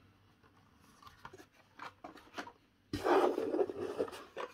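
Carded die-cast toy cars being handled: a few light taps and crinkles of the plastic blister packs, then about three seconds in a louder rustle and scrape as a hand digs into a cardboard box packed with cards and slides the next one out.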